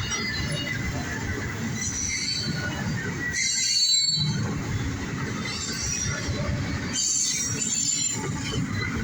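Cars of a CSX intermodal and autorack freight train rolling past with a steady low rumble. High wheel squeals come and go several times, the loudest about four seconds in.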